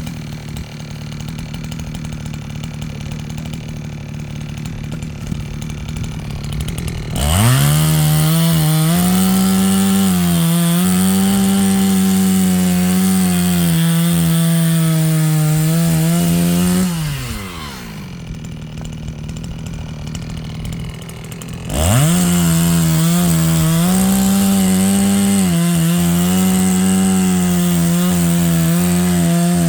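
Two-stroke chainsaw idling, then revved to full throttle and cutting through firewood logs twice, each cut lasting about eight to ten seconds. Between the cuts it drops back to idle. During each cut the engine pitch wavers as the chain bites into the wood.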